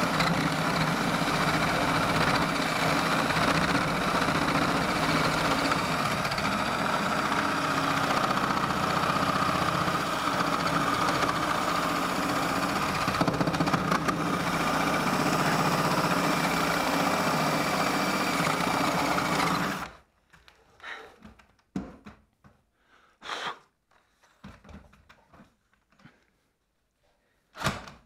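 Cordless drill boring a wide hole through a timber joist, running steadily under load for about twenty seconds and then stopping suddenly. After that come scattered knocks and clicks as the drill and timber are handled.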